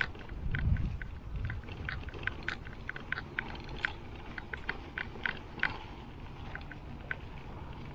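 Giant Trance X 29 mountain bike rolling along a dirt singletrack: a stream of light, irregular clicks and rattles from the bike, several a second, with low rumbling from the tyres and wind in the first second or so.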